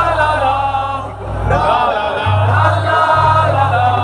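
Live band performing a Bangla song, with sung vocals over a heavy, steady bass line and a short dip in loudness about a second in.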